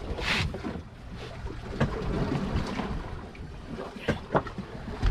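Low rumble of a fishing boat at sea with wind buffeting the microphone. A short splash-like hiss comes about a third of a second in, and a few sharp knocks follow near two and four seconds in.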